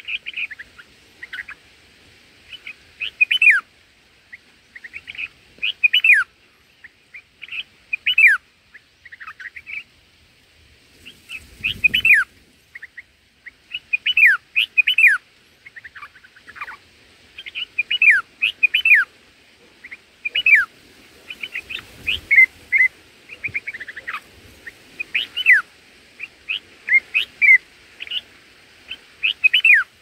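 Bulbul calling over and over, sharp falling chirps in quick clusters of two to four every couple of seconds: the parent's distress calls at its emptied nest.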